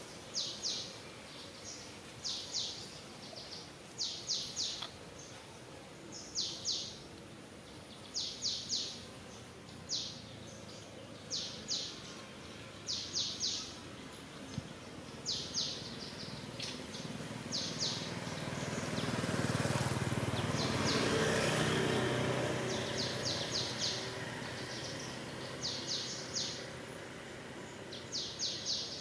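A bird calling over and over: quick runs of two to four high chirps about every second and a half. A rushing noise swells and fades about two-thirds of the way through.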